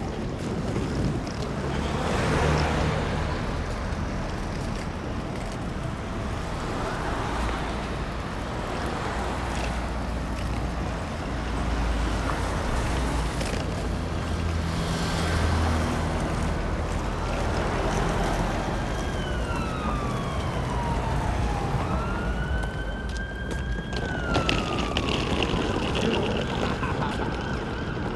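Road traffic passing, with vehicle engines rumbling by. About two-thirds of the way through, an emergency vehicle's siren wails in slow falling and rising sweeps for several seconds.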